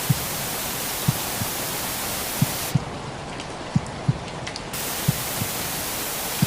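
Recorded heartbeat sound: slow double thumps, about one lub-dub every 1.3 seconds, over a steady hiss of rain white noise. For about two seconds in the middle the hiss thins and single raindrop ticks come through.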